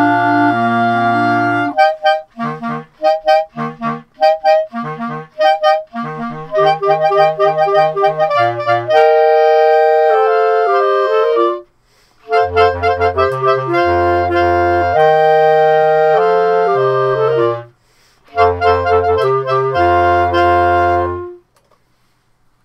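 Clarinet quartet of three clarinets and a bass clarinet playing a Renaissance madrigal. A held chord gives way to a string of short detached chords, then phrases of sustained chords broken by two brief pauses. It ends on a final held chord shortly before the end, after which it is nearly silent.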